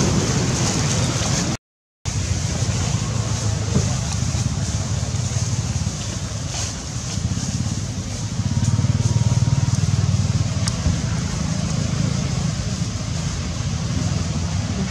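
Steady low rumbling noise, with a brief dropout to silence about two seconds in.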